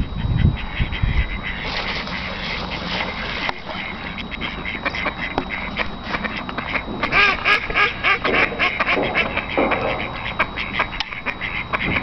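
Ducks quacking, a run of calls gathering about halfway through and going on to the end, over a low rumble in the first second.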